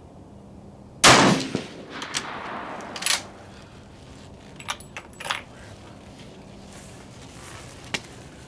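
A single rifle shot about a second in, with a long reverberating tail, followed by a few lighter knocks and clicks.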